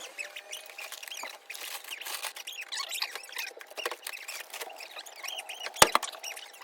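Small birds chirping and twittering in quick, high, squeaky calls over a faint hiss, with one sharp knock about six seconds in.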